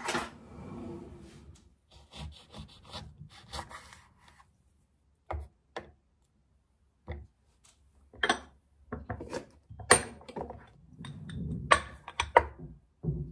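Kitchen knife cutting through a lemon on a small wooden board: irregular knocks of the blade on the board and scraping, rubbing noise. Near the end a glass dome is set down over the cut lemon with a few sharp clicks.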